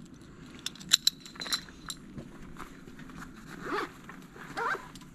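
Rustle and handling of hiking gear, with a few sharp clicks about a second in, then two brief faint calls or voices near the end.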